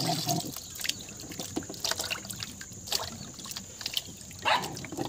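Water sloshing and trickling in a metal basin as hands rub and turn wild figs to wash them, with irregular small splashes and clicks and one louder swish near the end.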